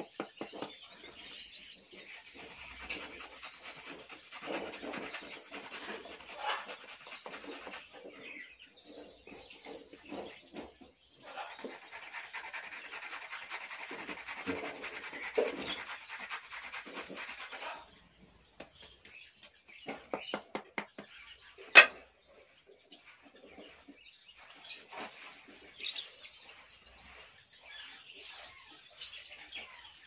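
A carrot being grated on a metal box grater, a steady rasping of quick strokes for about the first eighteen seconds. After a pause comes a single sharp click, and small cage birds chirp in the background.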